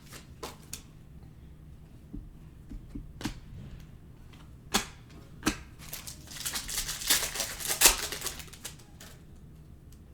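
Trading cards being handled during a pack break: scattered sharp clicks and snaps as cards are flicked through and set down, with a denser stretch of rustling near the middle.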